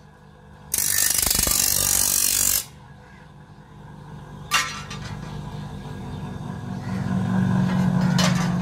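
Steel hand-plough blade pressed against a motor-driven grinding wheel to sharpen its edge: a loud harsh hiss of about two seconds, then the blade comes off. The motor keeps running with a low hum, louder near the end, and there is one sharp knock about halfway through.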